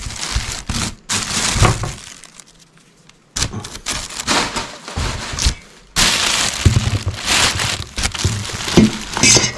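Plastic bags and packaging crinkling and rustling with knocks as hands rummage through discarded produce in a dumpster. There is a short lull about two seconds in.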